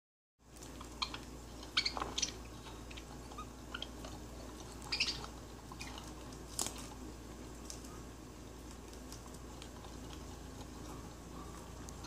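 A budgie's beak tapping and pecking at a tablet screen: a scattering of sharp clicks, most of them in the first seven seconds, over a faint steady low hum.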